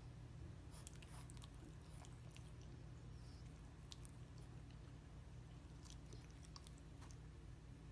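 Near silence: a low steady hum with scattered faint, short wet clicks of a French bulldog's mouth smacking and chewing.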